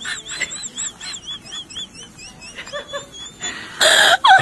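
High-pitched chirping, about four quick arched chirps a second, fading away after about three seconds. A short loud rush of noise comes near the end.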